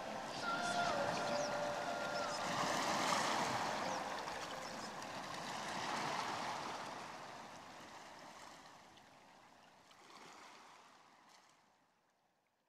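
Sea-wave sound washing in slow swells, with a few long held high notes in the first couple of seconds, fading out to silence at the close of the track.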